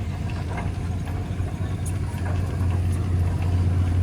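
An engine running steadily at idle, a low hum that grows louder near the end.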